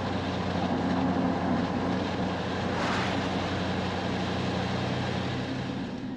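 Pickup truck engine running steadily with road and wind noise while driving, with a brief rush of noise about three seconds in.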